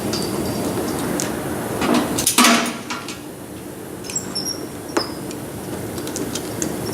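Hands working on a torn plastic bumper: a loud scraping rustle lasting under a second about two seconds in, then a few sharp clicks and short high squeaks, over a steady shop hiss.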